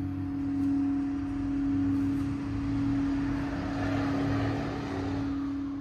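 Crystal singing bowl sustaining one steady tone, with a low wavering hum beneath it and a swell of hiss in the middle.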